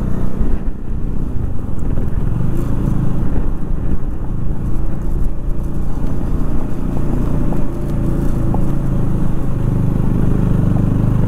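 Motorcycle engine running steadily while the bike rides over a rough gravel road.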